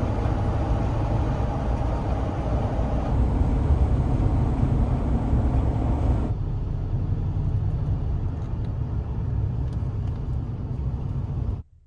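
Steady rumble of a vehicle on the move, road and engine noise heaviest at the low end. It shifts abruptly twice, about three and six seconds in, and cuts off suddenly near the end.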